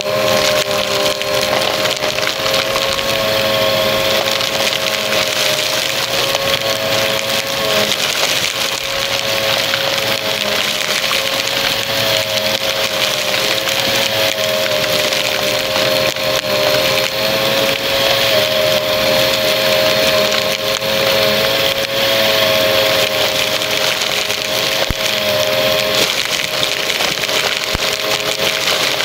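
Upright bagless vacuum cleaner running with a steady motor whine while it sucks up paper confetti from carpet, the pieces crackling continuously as they go up the nozzle: the crunch of the mix being vacuumed.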